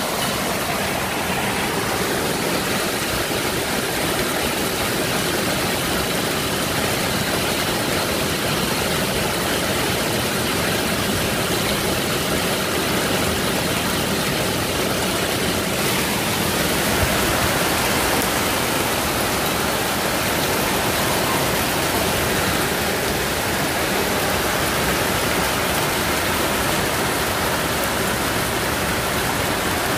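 Heavy downpour of rain and hail on a street and parked cars, a dense, steady hiss.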